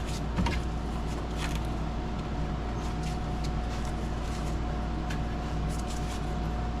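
Steady background hum with a few light clicks and rattles of hand work, as a radiator hose is being reconnected.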